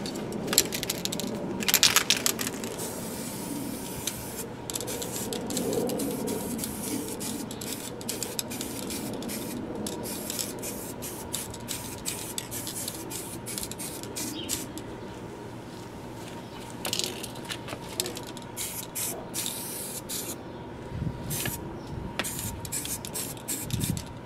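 Aerosol spray can hissing in repeated short bursts as a ukulele body and neck are spray-coated.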